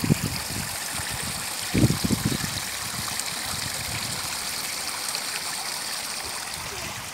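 Rainwater running in a shallow stream along a concrete footpath, backed up by a blocked drain: a steady rushing of flowing water, with a few low thumps near the start and about two seconds in.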